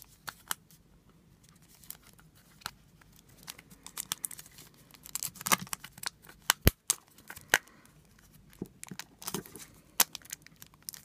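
Fingers picking and scratching at the clear plastic wrap sealed over a plastic blind-pot toy container, giving irregular crinkles and small clicks.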